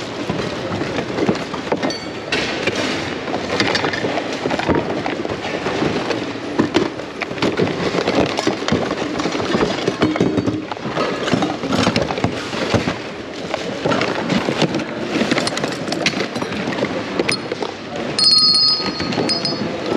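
Rummaging through a bin of used household goods and toys: plastic and hard items clatter, knock and rustle against each other over a steady murmur of a busy hall. A few short high-pitched tones sound near the end.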